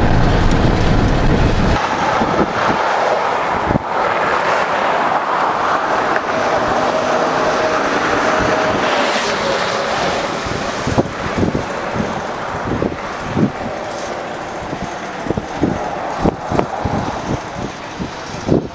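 Road rumble inside a moving car for the first two seconds, then traffic on a highway, a fire truck among it: tyre and engine noise swells to a peak and fades as a vehicle passes close by. A run of short thumps and gusts follows in the second half.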